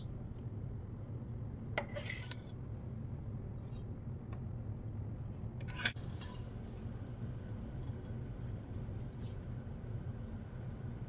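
A ladle clinks against a ceramic soup bowl twice, about two seconds in and again about six seconds in, over a steady low hum.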